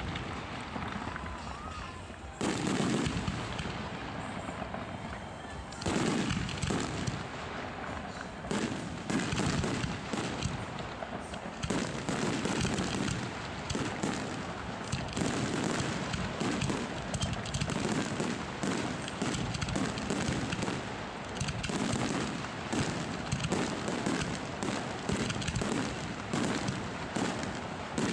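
Fireworks display: aerial shells bursting with booms and crackle. After a couple of separate bangs, from about six seconds in the reports come thick and fast, overlapping into a continuous barrage.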